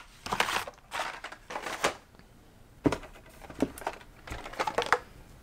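Carded Hot Wheels die-cast cars and their cardboard shipping case being handled: irregular rustling of cardboard and blister packs, with a few light clicks and a dull knock.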